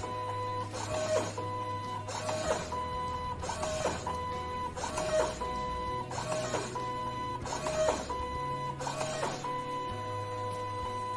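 IDP Solid 510 card printer running its cleaning cycle with a cleaning card: its motors whine in short runs that stop and start again every half second or so, over background music.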